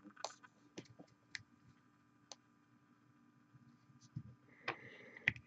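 Faint, scattered small clicks and taps, about half a dozen spread unevenly, from handling miniature-painting supplies, over quiet room tone.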